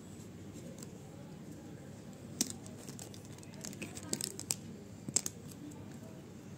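Marker pens and a sheet of paper being handled, giving sharp clicks and paper rustles: one click a little after two seconds in, a cluster around four seconds, and a couple more just after five, over steady low background noise.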